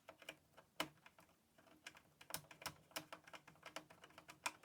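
Faint, quick, irregular clicks of a screwdriver backing two screws out of the computer's metal cover.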